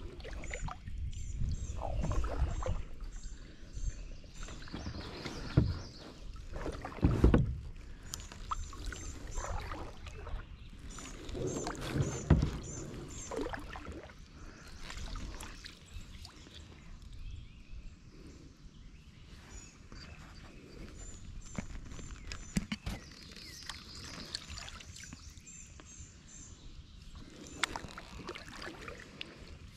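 Kayak paddling on calm water: paddle blades dipping and pulling through the water with drips and swishes, and a few sharp knocks of the paddle against the hull. The strokes are heavier in the first half and grow lighter and quieter about halfway through.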